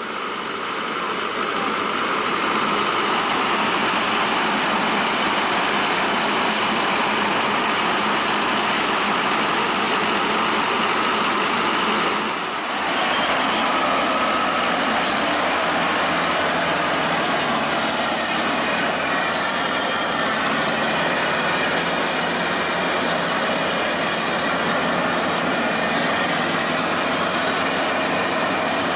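Crown Sumo rice combine harvester running, a dense steady engine and machinery noise. It dips briefly about twelve seconds in, then carries on steadily.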